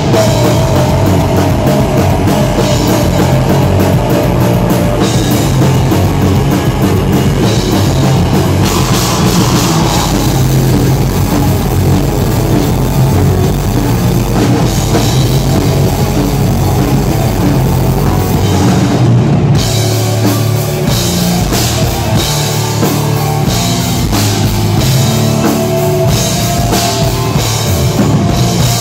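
Black metal band playing live and loud: distorted electric guitars over a full drum kit. The cymbals drop out for a moment about two-thirds of the way through.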